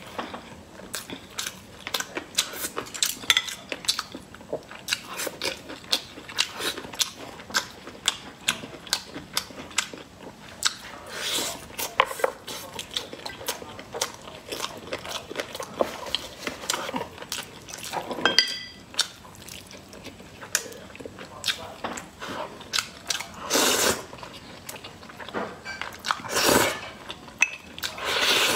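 Close-up eating sounds: steady chewing and lip-smacking on braised chicken, a run of small wet clicks, broken by several longer slurps, the loudest near the end as she sips from a cup.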